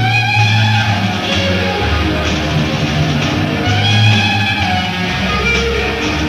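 Live rock band on a concert recording: electric guitar playing sustained, pitch-bending lead lines over bass guitar and drums.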